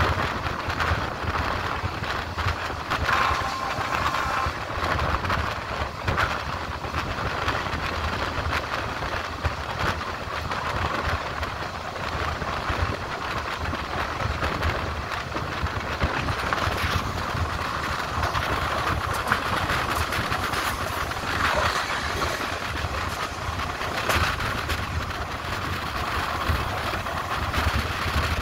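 Passenger train running along the line, heard from on board: a steady rumble and rolling noise of wheels on track, with occasional knocks from the rails. A brief steady tone is heard about three seconds in.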